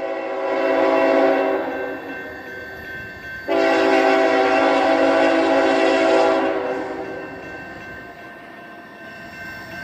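Third-generation Nathan K5HL five-chime air horn on a GE ET44AH freight locomotive sounding long blasts: the first is already sounding and fades out over the first few seconds, a second long blast begins about three and a half seconds in and trails off, and a third starts just at the end.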